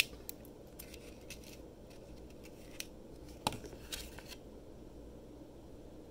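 Faint, scattered clicks and crackles of a plastic disc case and its paper insert being handled and picked at, with a sharper tap about three and a half seconds in and a short flurry of crackles just after.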